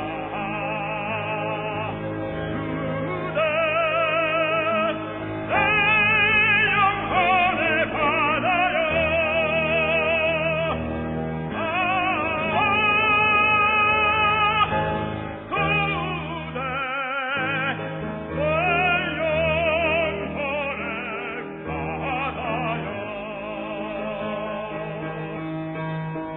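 Operatic tenor singing a Korean art song, holding long notes with strong vibrato over instrumental accompaniment, with a short break in the line about 17 seconds in.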